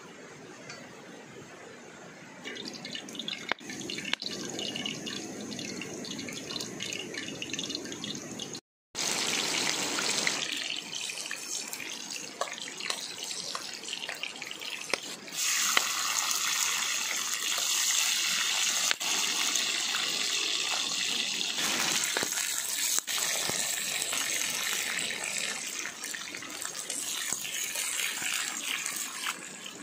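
Running, splashing water as a steady rushing hiss that changes level and character abruptly several times, with a brief total dropout about nine seconds in.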